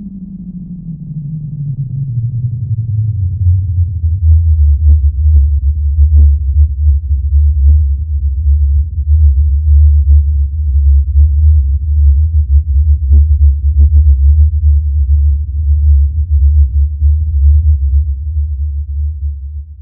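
Synthesized trailer 'distortion wave' sound effect: a low tone slides down in pitch over the first few seconds, then settles into a loud, steady deep drone with a few faint crackles scattered through it.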